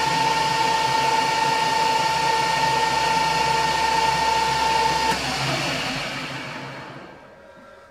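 Metal lathe running with a steady high whine, switched off about five seconds in and spinning down to a stop.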